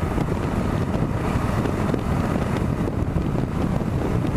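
Wind rushing over the microphone of a motorcycle moving at road speed, with the Kawasaki KLR650's single-cylinder engine running underneath; a steady, even noise.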